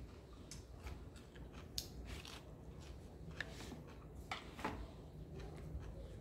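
Chopsticks clicking and scraping against a ceramic plate as food is picked up, with chewing. Short scattered clicks, a few sharper ones about two seconds in and again past four seconds.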